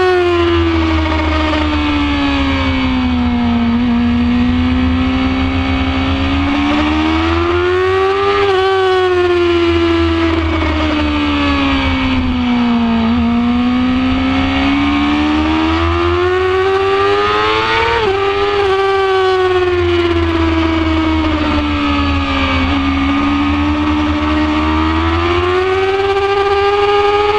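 2006 Yamaha R6's inline-four engine running hard on track, recorded onboard. Its pitch sinks and climbs in long sweeps three times as the bike slows for bends and pulls out of them, over steady wind rush.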